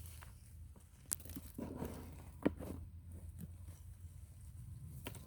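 Garden soil being dug and broken up while unearthing sweet potatoes: scattered crunching and tearing of clods and roots, with a couple of sharp knocks, the loudest about two and a half seconds in.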